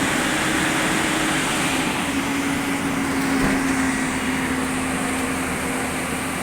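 Heavy diesel engine running steadily: a constant engine drone whose tone shifts slightly about two seconds in and then holds.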